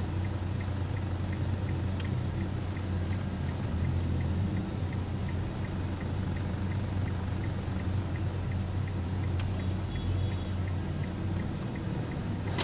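Car cabin noise while driving slowly: a steady low engine and road hum heard from inside the car. A faint, quick ticking runs through the first half or so.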